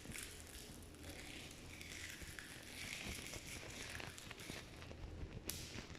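Foley campfire crackle: a cloth rubbed and dry leaves crumpled in a steady rustle, dotted with small crackling snaps, and one sharper snap of a dry twig near the end.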